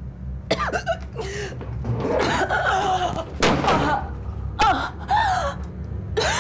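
A woman gasping and choking in distress: sharp, ragged breaths mixed with short strained cries that rise and fall in pitch, starting about half a second in and repeating.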